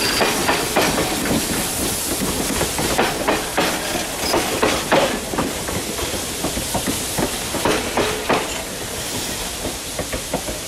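Passenger cars of a steam excursion train rolling past and into a tunnel, their wheels clicking and clacking over the rail joints above a steady hiss. The clacking thins out and fades over the last couple of seconds as the train goes into the tunnel.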